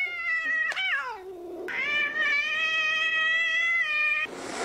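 White cat yowling, with two drawn-out calls: the first wavers and breaks off about a second in, and the second is held at a steady pitch for over two seconds. It ends in a short breathy hiss near the end.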